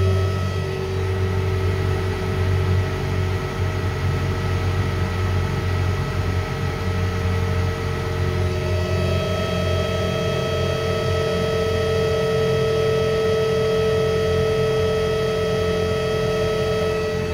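Electric motor running on a variable frequency drive: a steady low hum with several steady whining tones, a few of which shift to a new pitch about halfway through. The drive's output voltage is low, which apparently overloads the motor.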